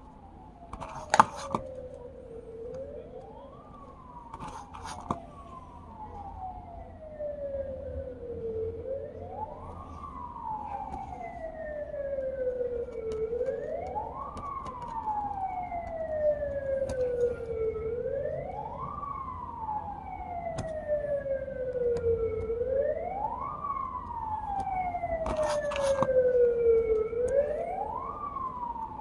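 A siren wailing, each cycle a quick rise in pitch followed by a slow fall, about once every four and a half seconds, getting steadily louder. A few sharp clicks, the loudest about a second in.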